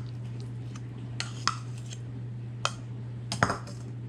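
A kitchen utensil clinking and knocking against a bowl a few times as pumpkin puree is added, the loudest knock near the end, over a steady low hum.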